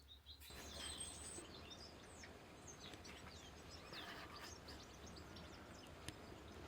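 Faint chirping of small woodland birds: many short, high calls overlapping, starting about half a second in, over a steady low hum.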